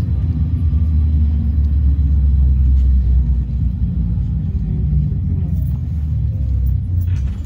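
Steady low rumble of a trolleybus on the move, heard from inside the passenger cabin: running gear and tyres on the road.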